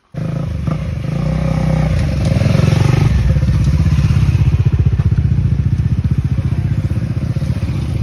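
Motorcycle engine running close by: a loud low exhaust rumble with rapid even firing pulses. The pitch shifts over the first few seconds, then holds steady.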